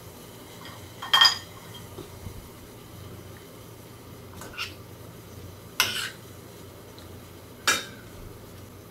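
Metal spoon knocking and scraping against a frying pan as chopped beef and vegetables are stirred: four separate clinks, the first ringing briefly.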